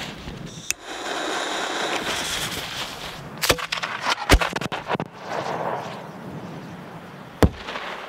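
A 3-inch green peony aerial firework shell fired from a mortar tube. A hissing for a couple of seconds gives way to several sharp cracks as the lift charge sends it up about four seconds in, then a single sharp bang near the end as the shell breaks in the air.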